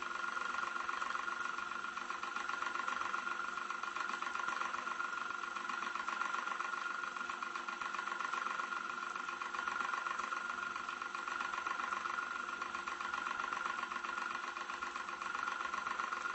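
Old electric fan running steadily, heard from a medium distance: an even, unchanging whir with a strong band in the middle range and a fast, regular flutter.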